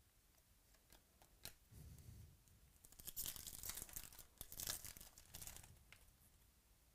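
Foil wrapper of a 2018 Topps Chrome trading-card pack being torn open and crinkled, a few quick rips about three seconds in, after some light clicks of cards being handled.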